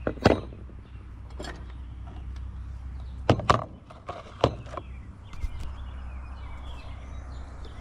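About five sharp knocks and clicks, spread over the first half, from small pieces of scrap being handled and set down on a scale.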